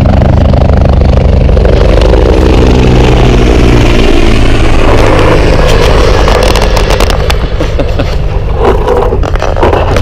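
Helicopter passing low directly overhead: a loud, steady rotor and engine throb that drops in pitch about halfway through as it goes over, then eases off a little near the end.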